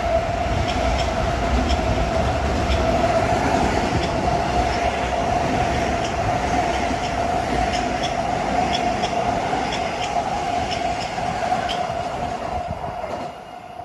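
Long Island Rail Road M7 electric multiple-unit train passing at speed: a steady rumble and rush of rail noise with a held whine and light repeated clicks. The sound fades near the end as the last cars go by.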